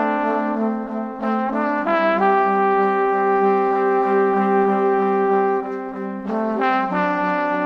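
Music of long held notes that change pitch a few times, around one and two seconds in and again near the end.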